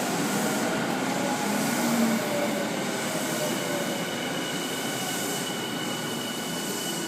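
Electric commuter train moving at the platform, a steady rumble of wheels with a faint whine slowly falling in pitch.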